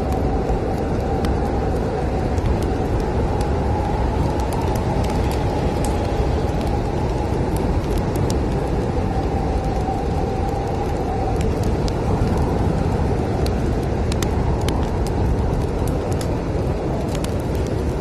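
Snowstorm wind blowing steadily with a deep rumble and a faint whistling howl, over a wood fire's sparse crackles and pops.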